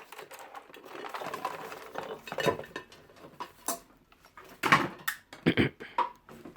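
Small hard objects clattering as they are rummaged through and handled, then several separate sharp knocks and clacks as things are set down or bumped.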